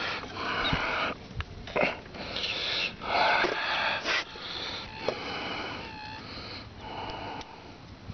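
A man breathing hard through his nose close to the microphone, a string of breaths about a second apart, one near the end of the middle with a slight whistle.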